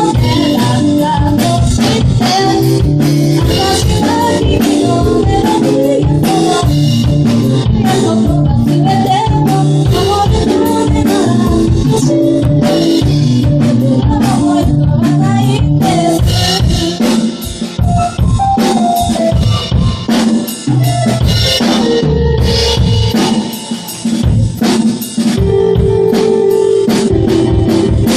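Instrumental passage of a band song, without vocals: a drum kit plays busily under bass and chords. The band briefly drops out a few times in the second half.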